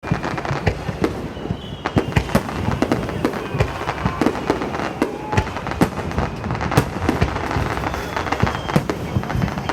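Fireworks finale barrage: aerial shells bursting in rapid succession, several bangs a second, over continuous crackling.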